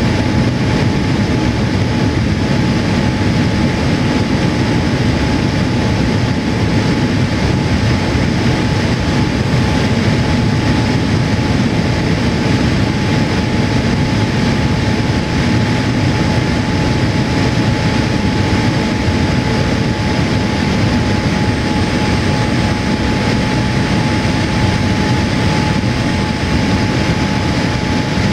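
Steady cabin noise inside a Boeing 787-8 in flight: the rush of airflow and the engine hum, with a thin steady whine over a heavy low rumble.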